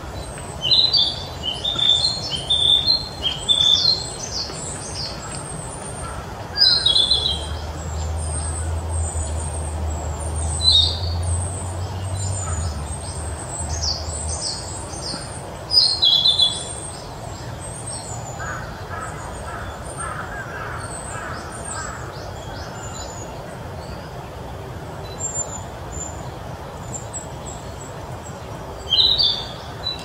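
A young male narcissus flycatcher singing: phrases of quick high notes, the first lasting several seconds, then shorter phrases with pauses of several seconds between them. A low hum runs underneath for several seconds in the middle.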